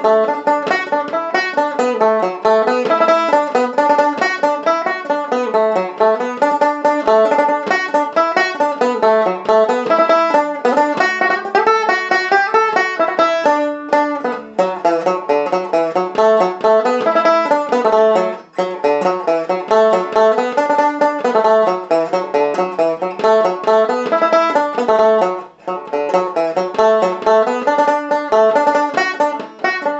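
Solo resonator banjo picked with a plectrum, playing a polka melody in quick single notes, with a few brief breaks in the playing about halfway through and again a little later.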